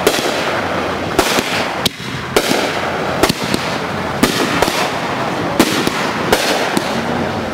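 Consumer fireworks going off, a continuous crackle and hiss broken by sharp bangs from aerial bursts, about one or two a second at uneven intervals.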